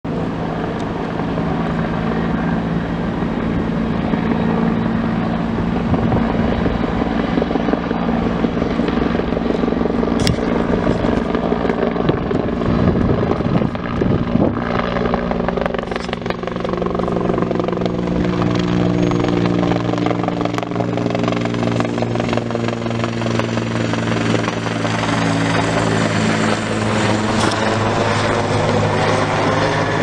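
Firefighting helicopter flying in and coming directly overhead, its rotor beat loud and steady.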